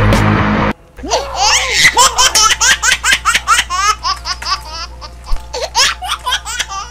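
A child's laughter sound effect: rapid, repeated giggling bursts rising and falling in pitch over a steady low hum. It starts about a second in, after a loud noisy burst that cuts off abruptly.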